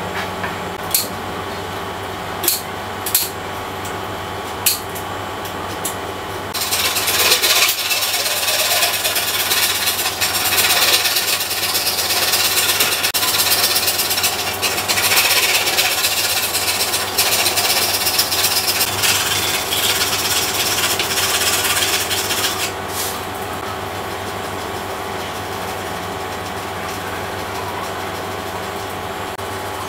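A flat hand file rasping back and forth over a model jet's wing, grinding down hardened white filler. It goes on for about sixteen seconds after a few light clicks, with a steady hum underneath.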